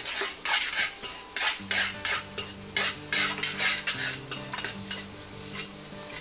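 Steel spoon scraping and stirring eggs as they scramble in a steel kadhai: a run of metal-on-metal scrapes, about two a second.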